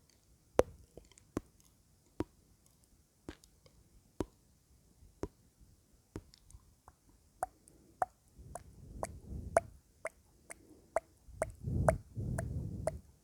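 Close-miked ASMR mouth sounds: sparse wet clicks and pops of the lips and tongue. Past the middle, soft breathy or mumbled noises join in.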